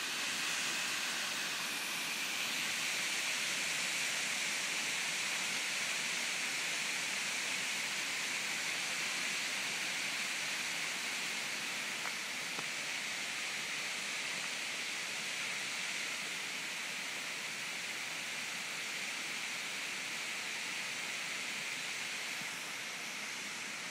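A waterfall pouring over a rock ledge: a steady, even rush of falling water.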